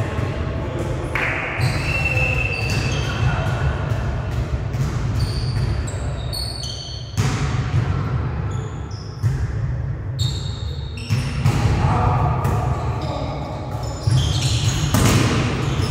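Indoor volleyball play: the ball being struck and hitting the floor several times, with sneakers squeaking on the sports-hall floor, all echoing in a large gym.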